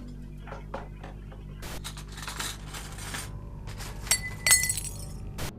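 Light clicks and a rustle over a steady low hum, then, about four seconds in, a couple of bright glassy clinks that ring briefly.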